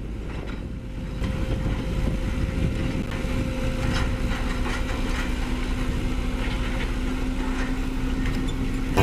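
A motor running steadily: a low rumble with a faint, even hum on top.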